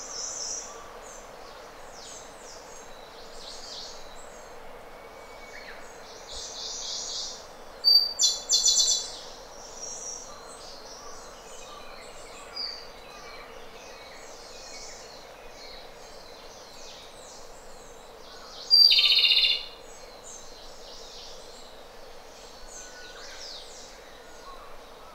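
Japanese robin (Larvivora akahige) singing: two loud phrases of song, about eight and nineteen seconds in, the second a trill. Faint high chirps and a steady hiss run underneath.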